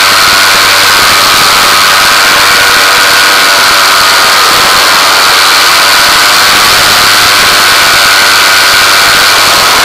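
Motor of the camera-carrying aircraft running steadily at a constant pitch, loud and close to the onboard microphone.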